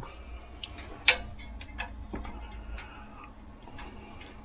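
Light, irregular metal clicks and taps as a Herschede tubular-chime hammer is handled and fitted back onto the movement's hammer rack, with the sharpest click about a second in.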